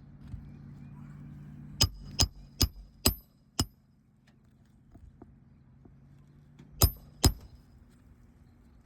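A hammer driving roofing nails into a replacement asphalt shingle: five quick ringing strikes, then two more near the end. A steady low hum underneath stops after the first run of strikes.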